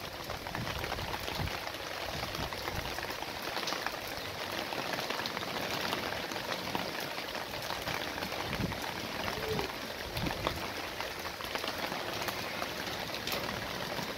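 Steady rain falling: an even hiss made of many small drop ticks.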